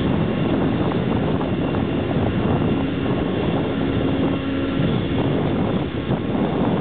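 Steady low rumble of a container ship's engine and propeller as the vessel moves slowly past close by, with a low hum that stands out for about two seconds midway.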